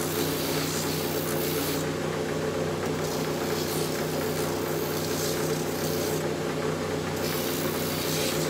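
Shoe finishing machine running with a steady motor hum while a boot's heel and sole edge are sanded against a spinning wheel. The rough hiss of the grinding eases off briefly twice as the boot is shifted on the wheel.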